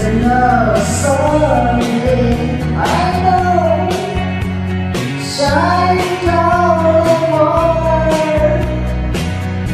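A song with a solo sung vocal over a steady beat of drums and bass.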